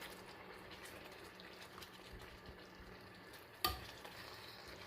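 Chicken thighs cooking in a pan with coconut cream over medium heat, sizzling faintly and steadily. There is one sharp knock a little past halfway through.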